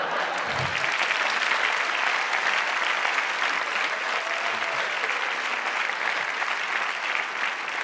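Large audience applauding steadily, a dense even clapping that eases slightly near the end.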